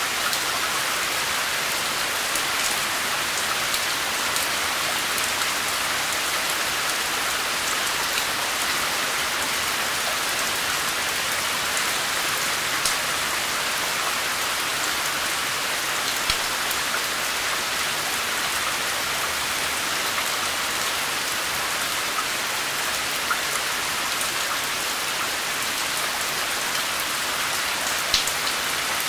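Steady rain falling on a surface, an even hiss of many drops, with now and then a sharper tick of a single drop.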